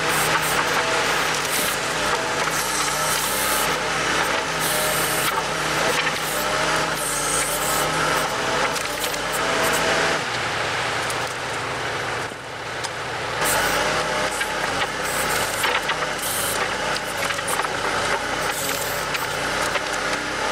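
Kubota L48 tractor-loader-backhoe's diesel engine running steadily under work, with a brief lull about twelve seconds in.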